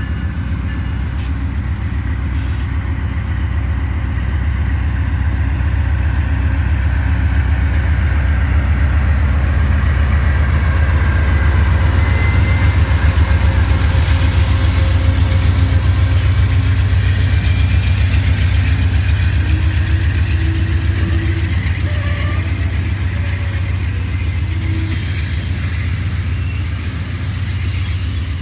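Amtrak GE P42DC Genesis diesel locomotive pulling out under power, a deep steady engine rumble that grows louder as it passes, peaking about halfway through, then easing as the double-deck passenger cars roll by.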